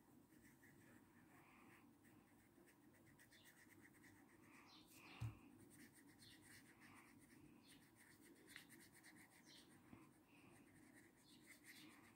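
Faint scratching of a felt-tip marker colouring on paper in quick, short strokes, with one soft thump about five seconds in.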